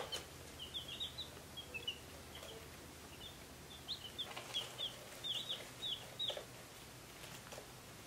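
Baby chicks peeping: a scatter of short, high chirps, thickest in the first second and again from about four to six and a half seconds in.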